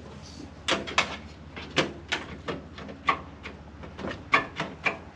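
Door lock actuator being worked into place by hand inside a Fox Body Mustang's door: about a dozen irregular sharp clicks and knocks of metal parts, loudest around one second in and again just after four seconds.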